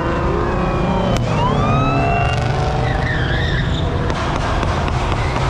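Car engines running loud and steady, with high squeals that slide up and down in pitch.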